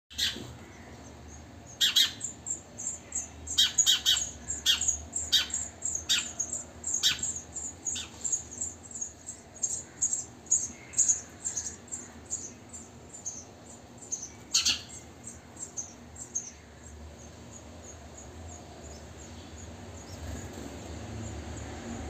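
House sparrows chirping at a nest box: a quick run of short, high, thin chirps, broken by a few louder, sharper chirps in the first seven seconds and one about fifteen seconds in. After about seventeen seconds the chirping thins out and grows faint.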